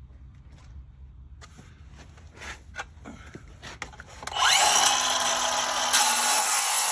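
A few handling clicks and knocks, then a Milwaukee Fuel circular saw spins up with a rising whine about four seconds in and runs loud and steady at full speed.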